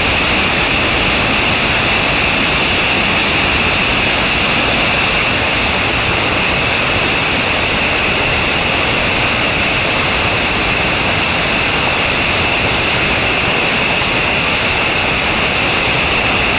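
Whitewater rapids of a creek in high water rushing over boulders, a loud, steady noise with no break.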